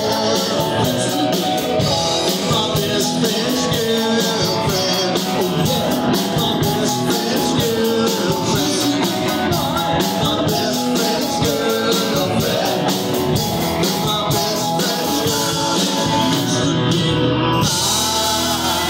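Live rock band playing loudly: electric guitars, bass and a drum kit, with a singer on a handheld microphone.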